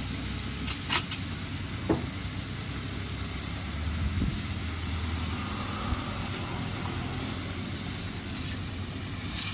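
Steady low engine-like rumble, with two sharp clicks about one and two seconds in.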